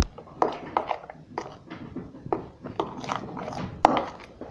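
Runny glue-and-activator slime being stirred in a bowl: a quick, irregular series of short wet clicks.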